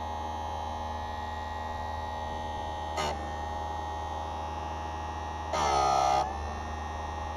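Electric saw-chain sharpening grinder running with a steady hum, its grinding wheel brought down onto a chain tooth briefly about three seconds in and again for about half a second near the end of the second half, giving a louder grinding whine each time as the motor takes the load.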